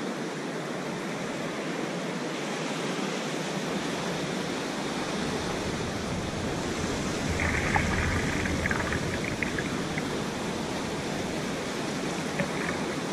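Ocean surf breaking and washing up the beach, a steady rush of waves and foam. A few faint ticks come through about seven to ten seconds in.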